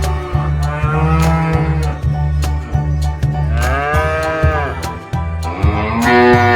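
Cows mooing: three long calls that rise and fall in pitch, over background music with a steady low beat.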